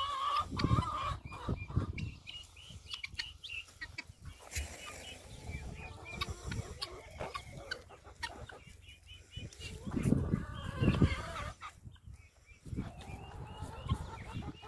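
Helmeted guinea fowl and chickens calling as the flock forages: a steady stream of short, high, repeated chattering calls and clucks, with louder calls near the start and again about ten seconds in.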